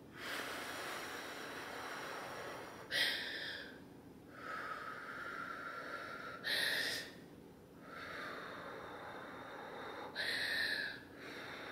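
A woman breathing heavily through a labour contraction: long breaths blown out through pursed lips, broken three times by a short, sharp, louder breath about every three and a half seconds.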